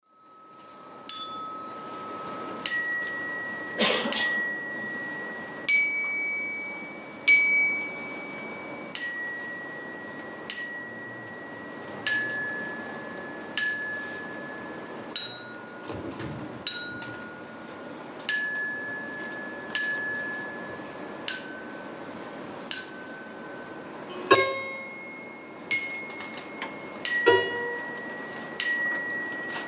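Fangxiang, a Tang-dynasty rack of tuned iron slabs, struck one note at a time about every second and a half, each note ringing on with a clear metallic tone, the pitch moving from note to note in a slow melody. A stronger struck knock sounds about four seconds in.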